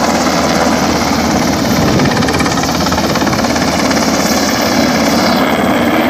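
Helicopter flying low overhead, its rotor and engine running loud and steady. The uploader takes it for a military aircraft.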